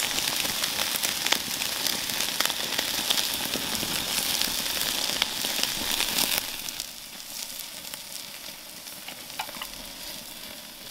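Thick steaks sizzling and crackling directly on hot charcoal embers. About six seconds in the sizzle drops to a quieter crackle with a few sharper pops.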